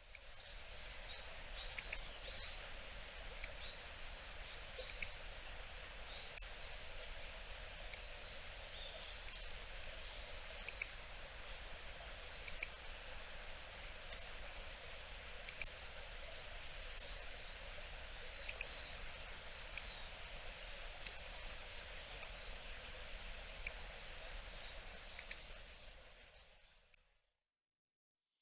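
Hawfinch giving short, sharp 'tik' calls, one roughly every second and a half and sometimes two in quick succession, over a steady background hiss. The calls stop about 26 seconds in.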